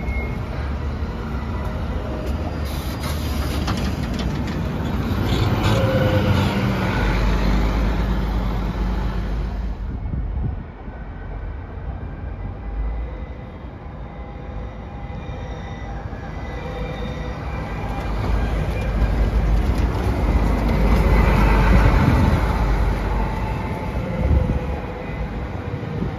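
Nancy TVR, a rubber-tyred electric guided tram, passing close by with a whine from its electric drive over rolling tyre noise, loudest about six seconds in. After an abrupt change near ten seconds, a second one approaches and passes, loudest about twenty-one seconds in.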